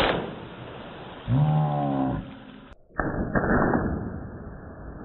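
A giant whoopee cushion lets out a low, buzzing blat about a second long, from a little over a second in. Rushing hiss runs around it, with a sudden break just under three seconds in.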